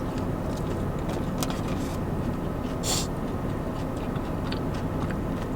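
A person chewing food, with small mouth clicks and one brief crisp sound about three seconds in, over a steady low rumble.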